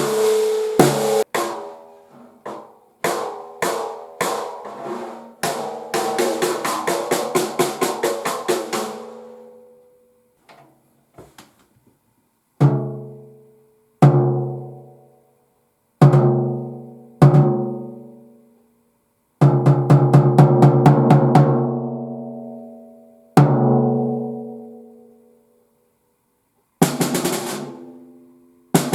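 Gretsch walnut snare drum with maple inlay, 14 by 6.5 inch, played with sticks: quick strokes and rolls for about the first ten seconds, then single hits spaced well apart, each ringing out with a long pitched decay.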